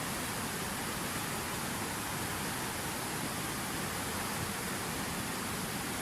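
Water falling and splashing in a fountain waterfall, a steady unbroken rush with a lot of hiss.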